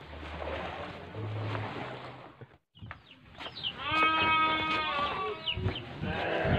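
A farm animal bleating: one long call about four seconds in, and another starting near the end, after a stretch of faint outdoor noise that cuts off suddenly.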